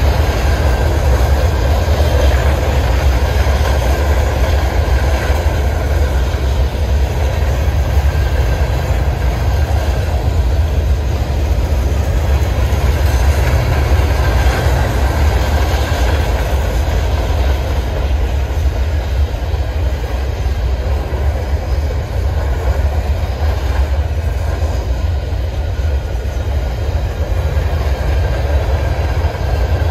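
Freight train rolling past: a steady, loud rumble of railcars on the rails.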